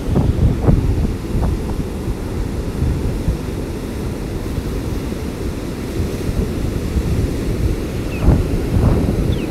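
Storm surf from Hurricane Dorian breaking and washing up the beach, with strong wind buffeting the microphone in a steady low rumble. There are louder gusts just after the start and again near the end.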